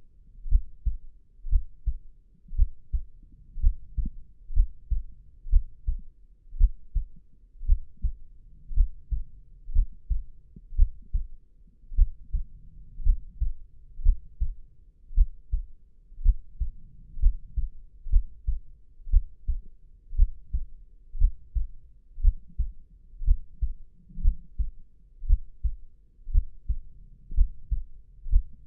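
A slow, steady human heartbeat: low, muffled double thumps repeating about once a second.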